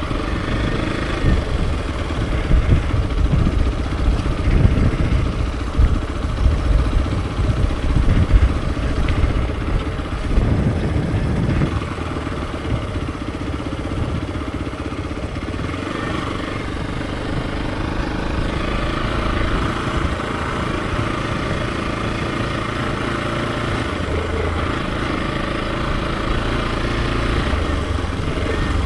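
Hero XPulse 200 4V's single-cylinder four-stroke engine running under way. For roughly the first twelve seconds an uneven low buffeting rides over it with loud peaks; after that the engine sound is steady and even.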